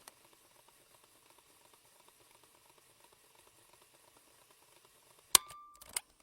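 Faint crackling hiss for about five seconds, then a sharp click with a brief steady tone, and a second click just before the end, between stretches of a fast-forward sound effect.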